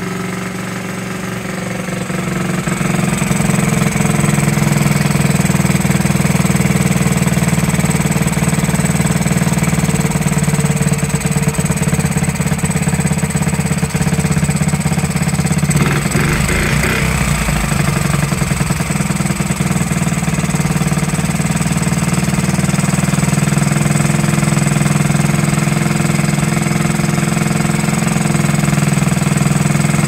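1969–70 Honda Z50's small four-stroke single-cylinder engine running steadily at idle, newly revived after 35 years laid up. It gets louder about two to three seconds in, as if the throttle is opened a little, and has a brief rougher patch about halfway through before settling back.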